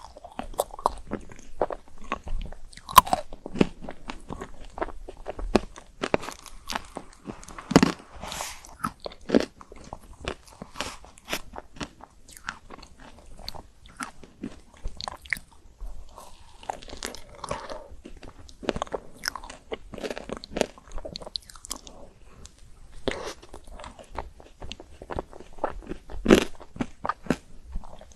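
Close-miked biting and chewing of chocolate-coated ice cream: irregular crisp crunches and cracks of the chocolate shell, with softer chewing in between.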